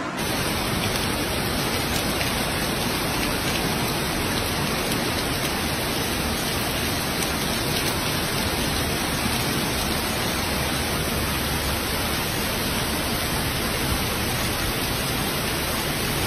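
Heavy rain falling: an even, unchanging hiss.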